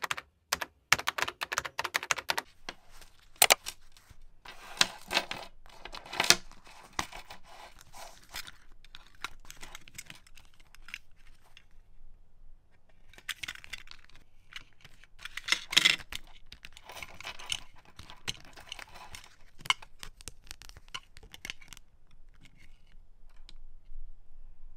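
Close-up handling noise of plastic wrapping and small merchandise items: crinkling and tearing with sharp clicks and taps. It comes in two busy stretches with a quieter spell in between.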